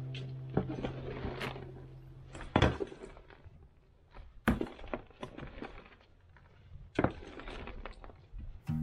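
Shovel digging and scraping through potting-soil mix in a plastic tub: a string of irregular gritty scrapes and dull knocks with short pauses between strokes.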